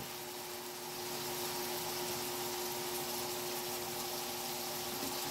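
Pork frying gently in a wok: a steady faint sizzling hiss with a low hum under it.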